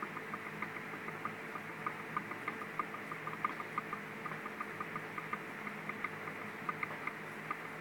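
Light, irregular clicking, several times a second, from a small hex driver being twirled to drive screws into the front shock tower of an RC truck, over a faint steady hum.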